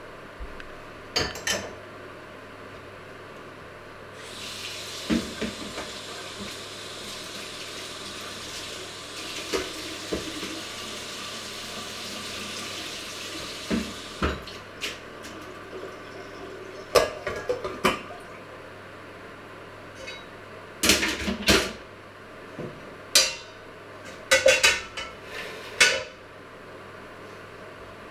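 Kitchen tap running into a metal sink for about ten seconds, then a string of sharp clanks and knocks of steel pots, pans and lids being handled and set down.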